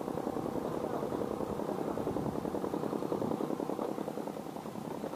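A steady motor drone with a fast, even flutter.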